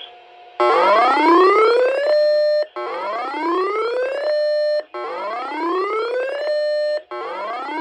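Electronic siren tone that rises in pitch, holds steady for a moment and cuts off, repeating about every two seconds, four times.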